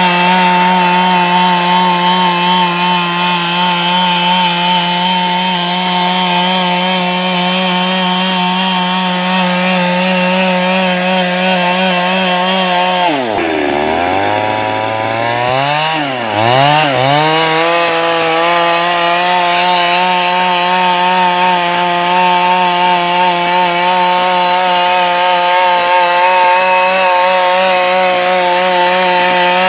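Chainsaw engine running steadily at high revs. About halfway through, the revs drop sharply and climb back, dip once more, then settle to the same steady high pitch.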